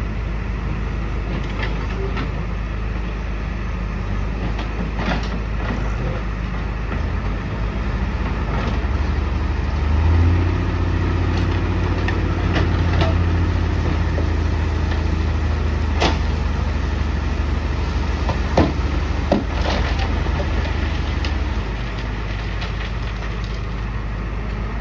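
Diesel tipper truck's engine running while its hydraulic hoist raises the load bed to dump soil; the engine note rises about a third of the way in and holds higher until near the end, when it drops back. A few sharp knocks are heard over it in the second half.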